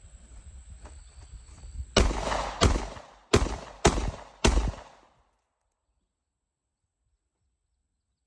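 Five gunshots fired in quick succession, about one every 0.6 seconds, each with a short echoing tail; the sound then cuts off abruptly to silence.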